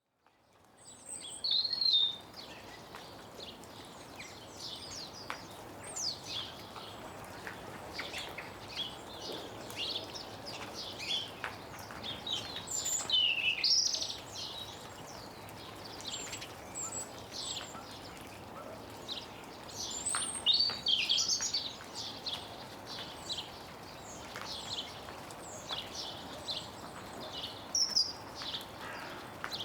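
Several small garden birds chirping and twittering close up inside a tree, with short, quick calls overlapping throughout, the loudest bursts about two seconds in, around thirteen seconds in and around twenty seconds in. Melting snow drips from the branches in occasional faint ticks, over a steady low background noise. The sound fades in at the very start.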